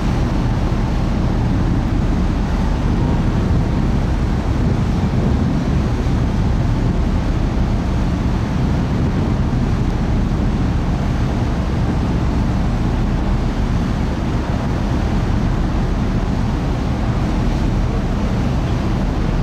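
Steady rumbling noise aboard a car ferry under way: wind rushing over the microphone, mixed with the ship's running noise. No horn or other distinct event stands out.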